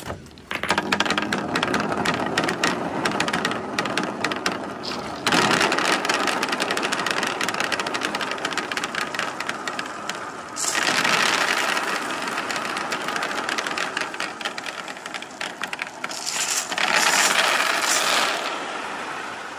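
Hundreds of billiard balls and glass marbles rolling and clattering down a sloped perforated board in a dense, continuous rattle of clicks. New batches are let go about five, ten and seventeen seconds in, each bringing a louder surge of clatter.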